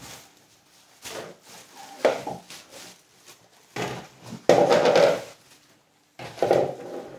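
Thin plastic wrapping crinkling and rustling in several short bursts as it is handled and shaken open, loudest about five seconds in.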